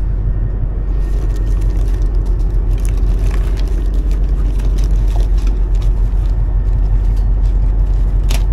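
Steady low rumble of the party boat's engine, with the crinkle and rustle of plastic lure packets as hands dig through a soft tackle bag, one sharper crackle near the end.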